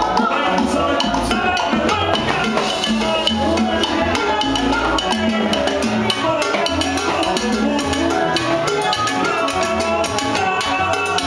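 Live salsa band playing, with congas and timbales keeping a driving rhythm under the horns and voices.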